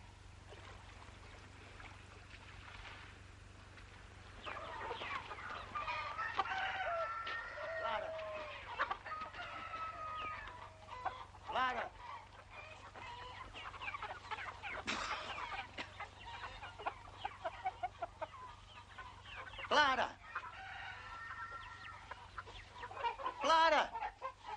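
Farmyard chickens clucking and squawking, with rooster crowing. The calls start a few seconds in and come repeatedly, with the loudest, sharpest calls near the end. A steady low hum runs underneath.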